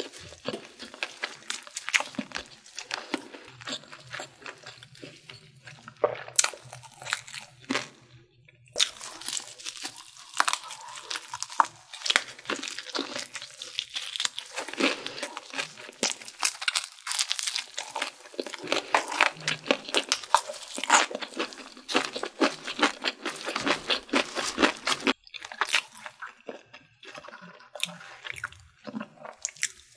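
Crunching and chewing of crispy Korean fried chicken, bite after bite, with many sharp crackles from the fried batter.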